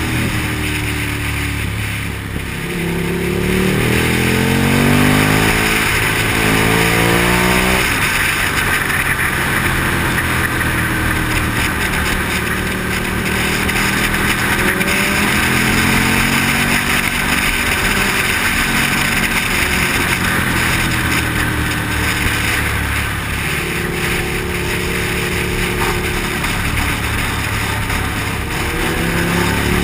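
Motorcycle engine running at road speed, its pitch climbing for several seconds from about two seconds in as it accelerates, then holding steadier with smaller rises and falls. A steady wind rush over the microphone runs under it.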